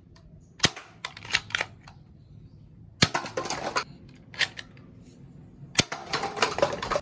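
Toy guns firing: a few sharp single shots, then short noisy bursts, and near the end a rapid string of shots like automatic fire.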